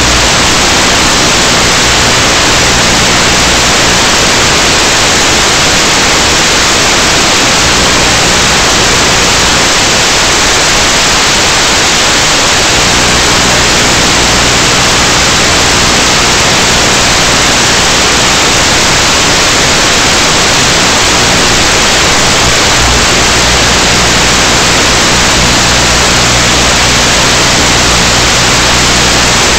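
Loud, steady static hiss from the analog FPV video receiver's audio channel, recorded by the EV800D goggles. A faint low hum sits under it, dropping out for much of the first half and briefly again later.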